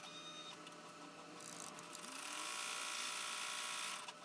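Baby Lock Enterprise multi-needle embroidery machine running, stitching out a design on a hooped vinyl panel. A steady mechanical hum and rattle, louder from about a second and a half in until near the end.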